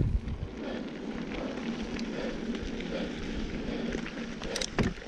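Mountain bike tyres rolling fast over a dirt and grit trail, a steady crackling crunch, with a few sharp rattling knocks from the bike near the end.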